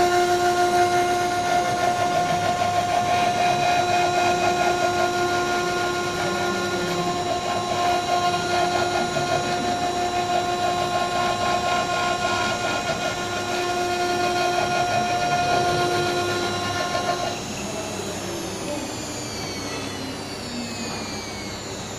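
CNC milling machine spindle running steadily while milling brick, a steady whine with overtones over cutting noise. About 17 seconds in the steady whine stops and a falling whine follows as the spindle winds down.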